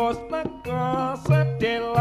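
Live Javanese jaranan music: a wavering, ornamented melodic lead over steady percussion, with repeated drum strokes and held low notes.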